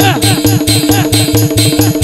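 Live Indian folk music: harmonium chords held steady over a fast, even drum beat of about six strokes a second, the drums giving short falling pitch bends.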